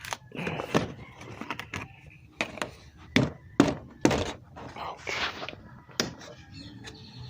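A string of hollow knocks and thunks from handling plastic quart bottles of motor oil while refilling an engine, about seven separate knocks with the loudest around the middle.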